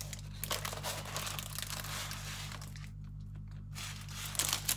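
Plastic cellophane wrapper and the rolled diamond painting canvas crinkling and rustling as they are handled and unrolled, with a short lull about three seconds in.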